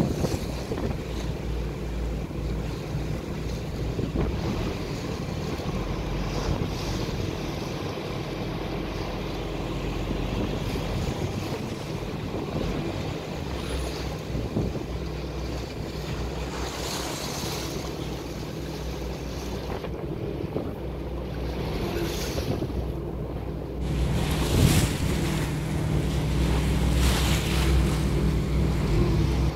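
Dive boat's engine running with a low, steady hum, mixed with wind on the microphone and waves splashing; the engine gets louder about three-quarters of the way through.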